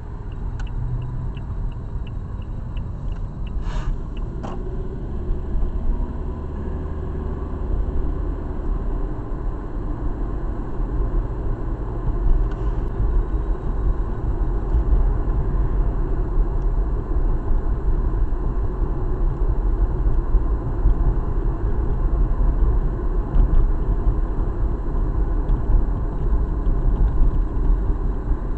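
Car engine and tyre road noise heard from inside the cabin as the car pulls away from the intersection and drives on, growing gradually louder as it gathers speed. A turn signal ticks for the first couple of seconds, then stops.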